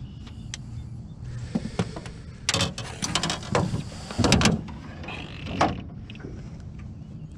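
Knocks, rattles and rustling as a freshly netted saugeye is handled in a landing net in a small fishing boat, with a quick run of clattering in the middle, loudest just past four seconds in.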